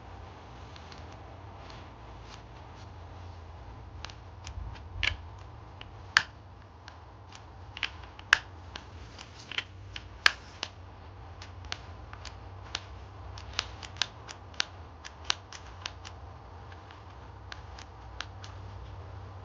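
Irregular sharp clicks and taps of the hard plastic and metal parts of a Stihl MS 180 chainsaw being handled and pressed into place. The loudest clicks come about five to ten seconds in, followed by a run of lighter ones.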